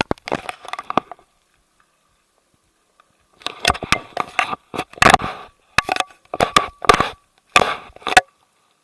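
Irregular crunching steps and scrapes on loose rock and gravel while scrambling down a steep slope, with sharp clicks among them. A short burst comes first, then a pause, then about a dozen crunches in a row.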